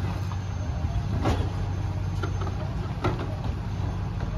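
Pickup-chassis pup garbage truck's engine idling steadily, with two sharp knocks, about a second in and again near three seconds, from trash being handled in its dump body.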